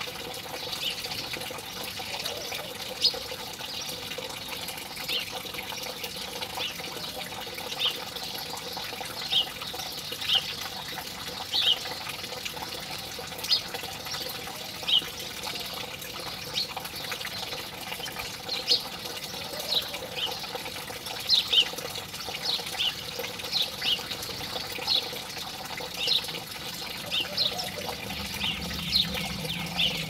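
House sparrows giving short, sharp chirps, scattered at about one a second and coming more often in the second half, over a steady rush of running water.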